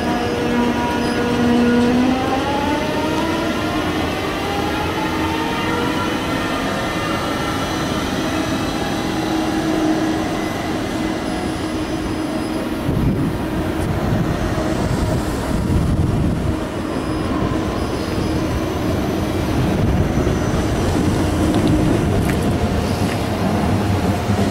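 ICE 3 (class 403) high-speed electric multiple unit pulling away: its traction drive whines with several tones that begin rising in pitch about two seconds in, as the train gathers speed. Over the second half the rumble of wheels on the rails takes over as the cars roll past.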